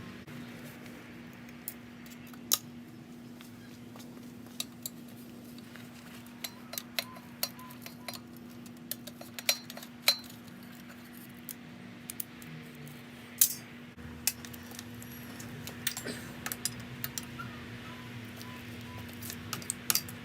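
Metal tools and bicycle parts clinking and clanking during disassembly: scattered sharp clinks at irregular intervals, a few louder ones, over a steady low hum.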